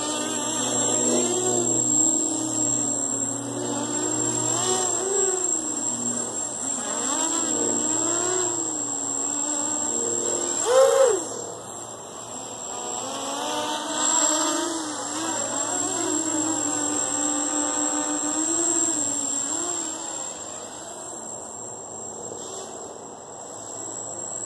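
QAV250 quadcopter's Emax MT2204 brushless motors spinning 5040 bullnose propellers, a buzzing whine whose pitch rises and falls continually as the throttle changes. About eleven seconds in the motors speed up sharply, the highest and loudest moment, then settle back.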